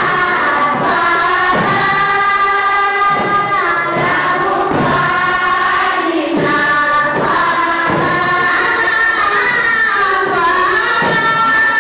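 Deba, the Comorian women's Sufi devotional chant: a large group of women singing together in long held notes that slide between pitches, over frame drums struck about once a second.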